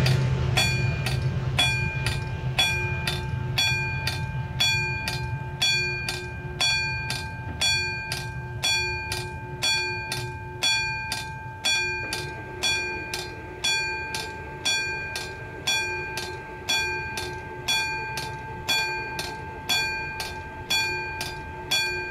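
Bells ringing in an even rhythm of strikes, about one and a half a second, their tones hanging on between strikes. Under them at first is the low drone of the Pilatus PC-12 NG's turboprop engine, fading away.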